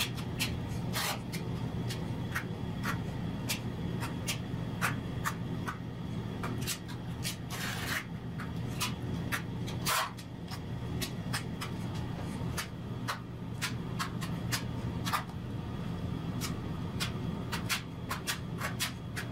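A trowel blade scraping and clicking over the mortar bed as thick tile adhesive is spread and smoothed, in short irregular strokes with one longer scrape about eight seconds in, over a steady low hum.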